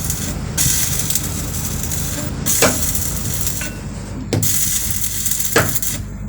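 Electric arc welding: a steady crackling hiss over a low hum that cuts out briefly three or four times as the arc breaks and strikes again, with a few sharp knocks in between.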